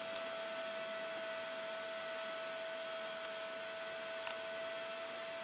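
Greenhouse circulation fans running steadily: an even rush of air with a constant whine on top.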